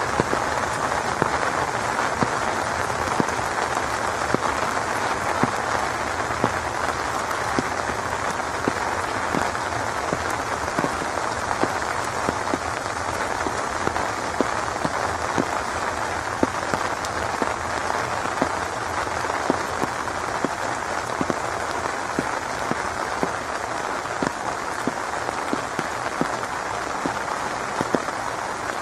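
Steady rain falling, with drops ticking irregularly on a nearby surface.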